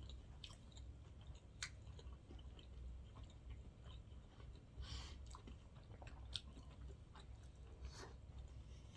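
Faint chewing of sushi, with soft wet mouth clicks and smacks about every second or so over a low steady room hum.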